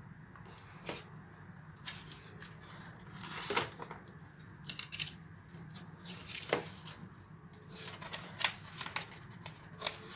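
Paper wall-calendar pages being turned and handled: scattered rustles and crinkles of paper, with a few louder crackles.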